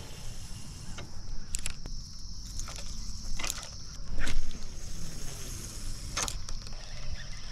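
Steady high-pitched insect chorus, typical of crickets, with a few brief swishes and clicks from a spinning rod and reel being swung and cast.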